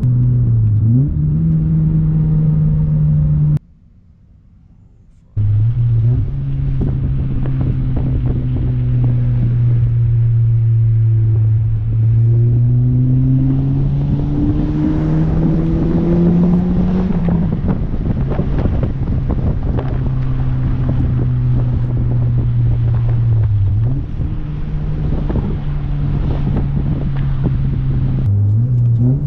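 Honda Civic Si's K24 four-cylinder engine running while driving, its note climbing steadily under acceleration and then dropping sharply, as at a gear change, past the middle and again near the end. About 4 s in the sound cuts to a much quieter hum for about two seconds.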